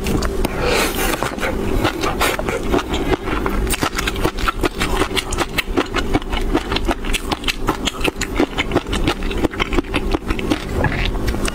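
Close-miked chewing of a mouthful of fish roe (green tobiko and black roe): a dense, irregular run of small crackling pops and wet mouth clicks.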